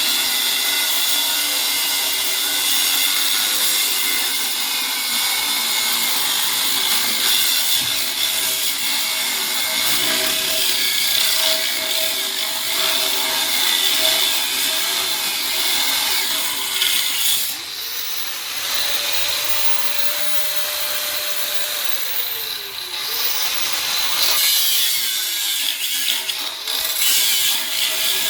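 Power saw cutting through a safe's thick steel wall, a steady harsh high-pitched grinding. From about two-thirds of the way in the grinding eases for several seconds, leaving the motor's tone, which dips and rises again before the blade bites back into the metal.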